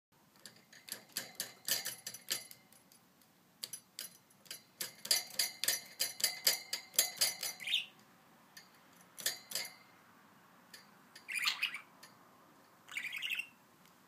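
Young budgerigar chirping in quick runs of sharp clicks and chirps for most of the first eight seconds, then a short burst and two longer chirps near the end.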